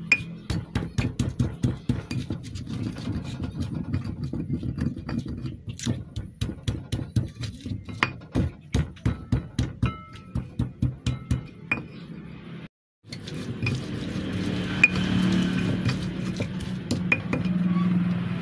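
Rapid, rhythmic knocking of kitchen work, about three strokes a second, which stops about twelve seconds in, with background music underneath. After a short break a steadier sound with a low hum takes over.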